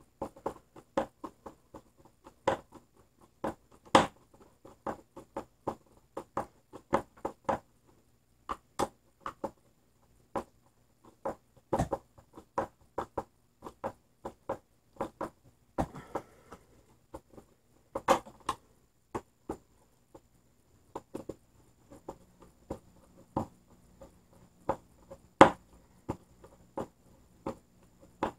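Screwdriver turning the cord-clamp screws on the back of a heavy-duty electrical plug: a string of sharp, uneven clicks and ticks as the screws are cranked down tight.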